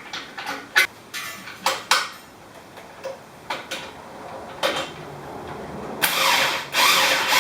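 Hand tools working on metal: a string of sharp clicks and knocks, then several longer, louder rasping noises near the end.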